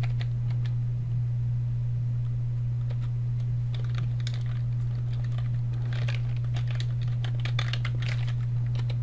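Computer keyboard typing in short flurries of key clicks: a few around four seconds in, then a longer run from about six to eight and a half seconds. A steady low hum runs underneath.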